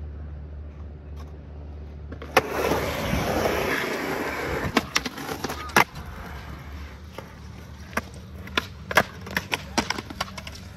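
Skateboard on concrete: a sharp clack, then the wheels rolling and the board sliding along a concrete ledge in a noseslide, with hard clacks of the board hitting the ground near five and six seconds in. A run of lighter knocks follows near the end.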